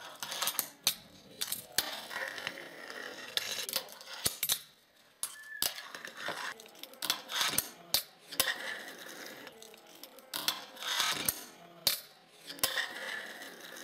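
A wooden fingerboard rolling across a hard tabletop and popped onto a metal rail: stretches of rolling wheel hiss broken by many sharp clicks and clacks as the tail pops, the board lands and the trucks strike the rail.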